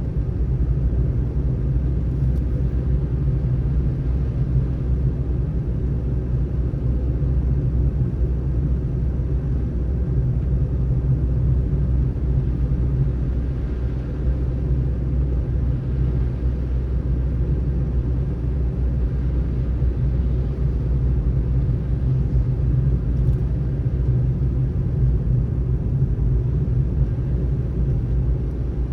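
Steady low rumble of a car driving on snowy roads: tyre and engine noise with no change in pace.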